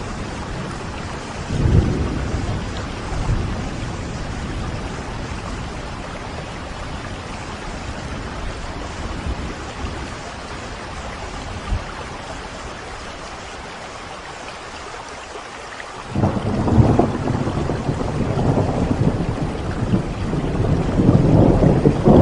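Steady heavy rain with thunder: a short low rumble about two seconds in, then a louder rolling rumble that breaks in suddenly near the end and keeps building.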